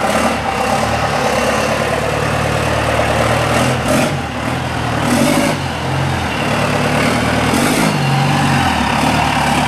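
4BT Cummins four-cylinder turbo diesel in a Ford pickup running while the truck drives, its engine pitch rising and falling several times with throttle and gear changes.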